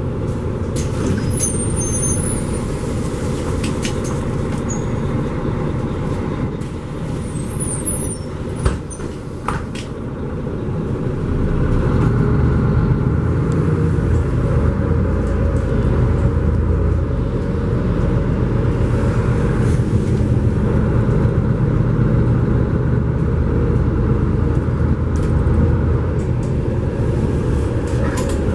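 Ride inside a Mercedes-Benz Conecto G articulated city bus: engine rumble and road noise, with a few brief clicks and squeaks in the first third. About eleven seconds in, the engine rumble grows louder and then stays steady.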